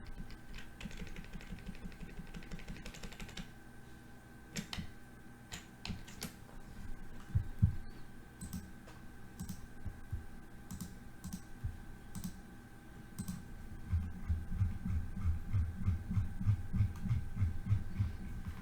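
Computer keyboard and mouse being clicked while working a spreadsheet: scattered sharp key clicks, then a run of softer taps at about three a second in the last few seconds, over a faint steady electrical hum.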